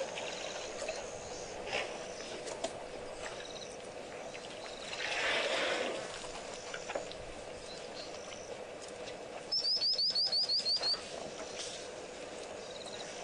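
Wild birds calling around a waterhole: scattered short high chirps, and about ten seconds in a quick run of about nine descending whistled notes. A brief rushing noise comes about five seconds in.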